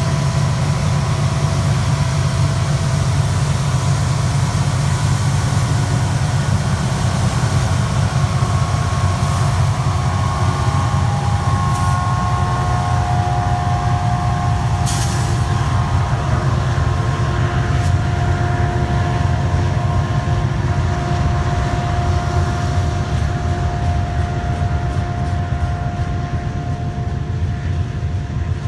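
Union Pacific double-stack container freight train passing close by: its diesel locomotives go by in the first seconds, then the container well cars roll past on the rails with a steady heavy rumble. A thin, steady whine sits above the rumble.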